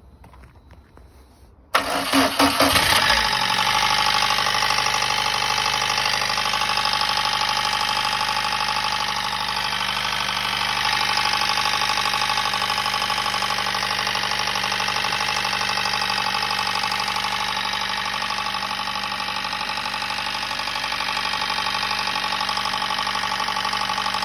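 VAZ-2110 engine cranked and catching about two seconds in, then idling steadily and noisily with a rhythmic knock that the owner suspects may come from the valves.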